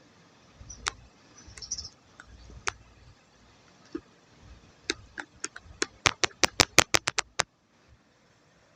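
A run of sharp clicks or taps: a few scattered ones, then about a dozen in quick succession that come faster and stop suddenly near the end.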